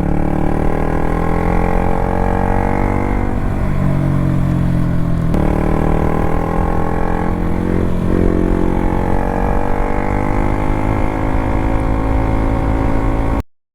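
KTM RC 200's single-cylinder engine running on the move, its note sinking slowly as it eases off, breaking sharply about five seconds in, then rising and easing off again. The sound cuts off abruptly near the end.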